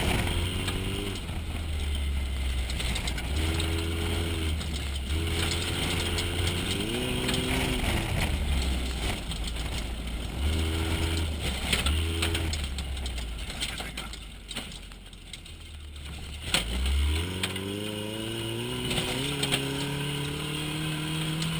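Off-road racing trophy truck's engine heard from inside the cab, its revs climbing and dropping again and again as it accelerates and shifts. About two-thirds of the way through, the engine falls away briefly, then climbs in one long rise, with knocks and rattles throughout.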